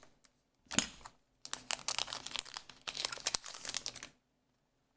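Crinkling of a foil trading-card booster pack wrapper being handled. There is a sharp crackle a little under a second in, then dense crinkling for about two and a half seconds that stops abruptly.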